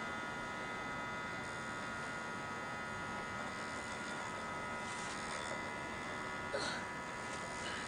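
Steady electrical hum with several fixed, thin whining tones above it, and a couple of faint brief sounds about five and six and a half seconds in.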